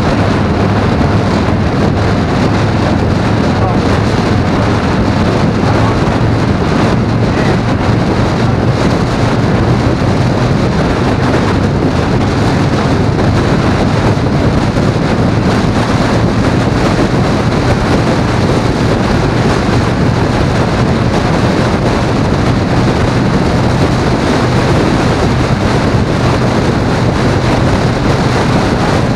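Riding at highway speed: a steady rush of wind over the microphone with a low engine drone underneath, unchanging throughout.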